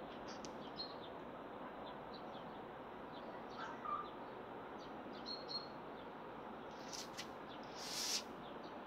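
Scattered faint bird chirps over a steady background hiss, with a couple of short rustling noises near the end.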